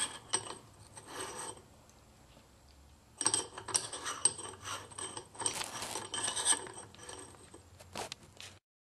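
Daniel Defense barrel nut being spun by hand onto the greased threads of an AR-15 upper receiver: short metallic scraping, rattling strokes, a pause of about a second and a half, then a longer run of them, with a sharp click near the end.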